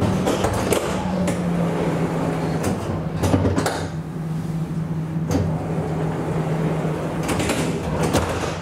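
Inside the cab of an Alstom Citadis electric tram: a steady electric hum, with scattered knocks and rattles from the car body every second or two.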